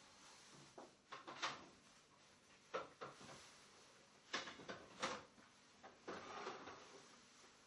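Handling noise in a small quiet room: a scattering of short knocks and clicks as objects are picked up and set down on a table, with a brief rustle near the end.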